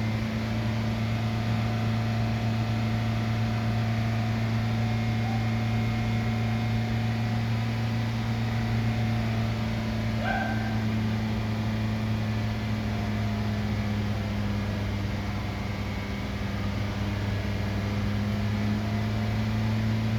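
2020 Nissan Rogue's four-cylinder engine held steadily at about 3000 RPM for an alternator output test, with the heater, AC and headlights switched on as electrical load. A brief faint chirp about halfway through.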